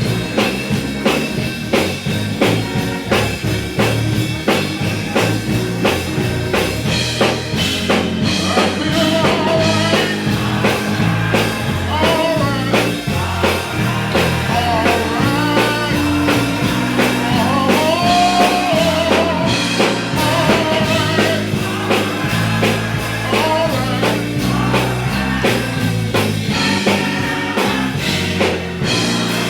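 Church band playing an upbeat praise break with a steady drum beat and a walking bass line, with a voice singing over it from about eight seconds in.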